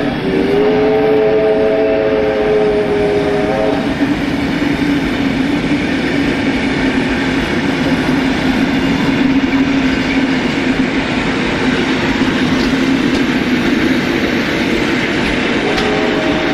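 Passenger carriages of a steam-hauled train rolling past on street-running track, the wheels giving a steady rumble. A locomotive's steam whistle blows a long blast over the first four seconds.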